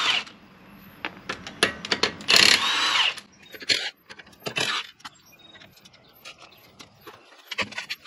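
Cordless impact wrench with a 17 mm socket spinning off the front wheel's lug bolts in a few short bursts, the longest a little over two seconds in. Light clicks and clatter come between the bursts.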